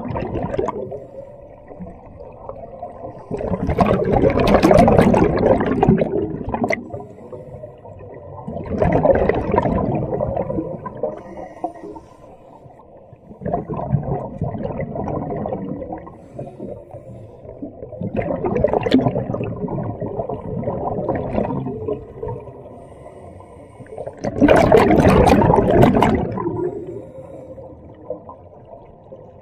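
Scuba diver breathing through a regulator underwater: each breath out sends up a gush of bubbles about every four to five seconds, five in all, with quieter stretches between them.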